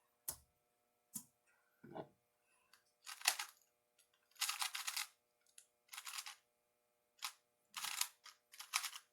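A 2x2 speed cube being turned by hand: a few single knocks, then quick bursts of plastic clicking and rattling as the layers are turned during a solve.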